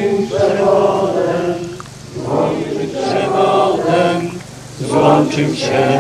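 Voices singing a slow liturgical hymn in long held notes, in phrases of about two seconds with brief pauses between them.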